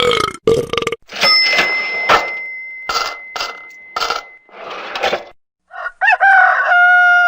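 A quick run of short, unrelated meme sound-effect clips, one after another: a string of brief bursts, one carrying a long steady high tone, then near the end a pitched sound that bends and then holds steady.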